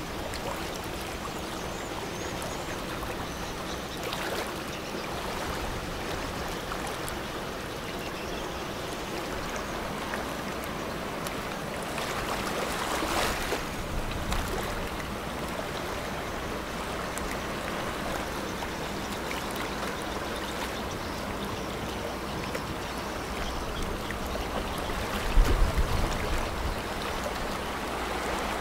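Steady rush and lapping of river water, swelling briefly in the middle. A short low thump near the end is the loudest sound.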